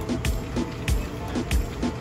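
Background music with a steady drum beat: low kick thumps and sharp higher hits repeating at an even pace.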